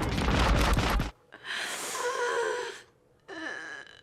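Gunfire from the war film's soundtrack cuts off about a second in. A brief vocal sound with a wavering pitch follows, lasting about a second and a half, then faint high tones.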